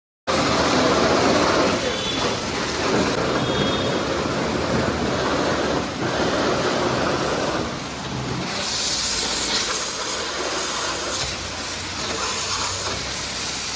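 High-pressure spray jet hissing steadily while cleaning out a machined engine block; about eight seconds in the hiss turns brighter and higher.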